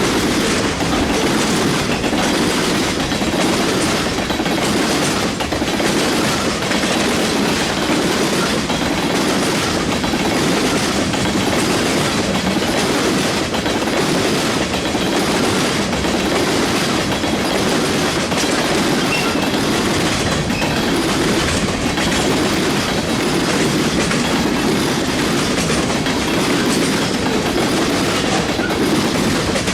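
Freight cars of a mixed freight train rolling steadily past, a continuous rumble of wheels on rail with repeated clicks as the wheels cross rail joints.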